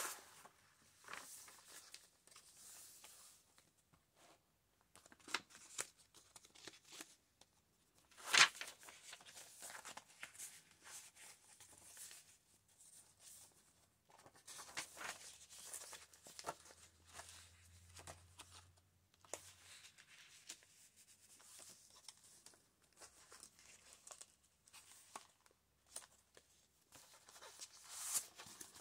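Heavy scrapbook-paper pages of a handmade journal being turned and handled: soft, scattered paper rustles and page flips, with one sharper paper snap about eight seconds in.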